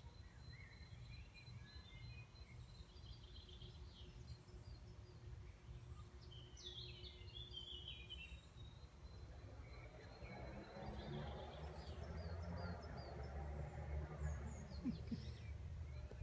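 Faint outdoor ambience: small birds chirping in short runs of quick notes over a low steady rumble. About ten seconds in, a soft rustling hiss grows a little louder.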